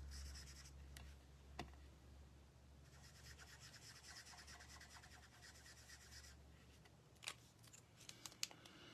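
Faint scratchy rubbing of colouring strokes on cardstock, with a couple of light clicks near the end.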